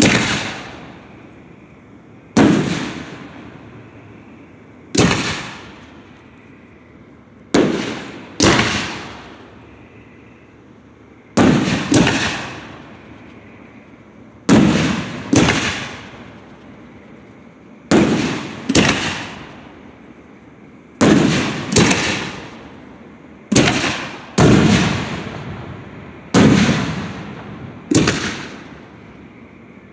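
Aerial fireworks shells bursting one after another: about twenty sharp bangs at uneven intervals, some close in pairs, each trailing off in an echo over about a second.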